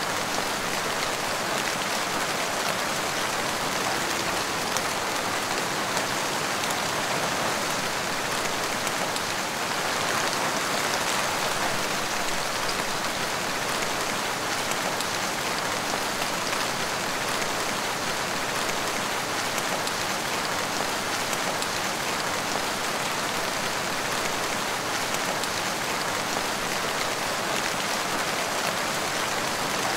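Heavy rain falling steadily, an even hiss of rain on surfaces with no change or break.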